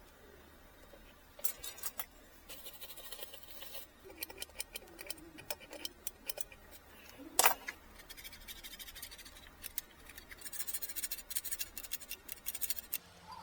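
Small, irregular clicks and rattles of hands and tools working on an Apple II Plus keyboard, with one louder knock about seven seconds in and a quick run of rapid clicking near the end.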